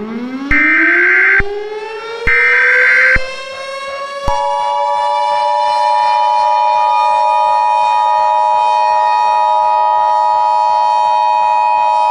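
Emergency Alert System signal: two short bursts of screeching data tones (the EAS header), then about four seconds in the steady two-tone attention signal begins and holds. Underneath, a civil defense siren winds up in a rising glide and then holds a steady pitch.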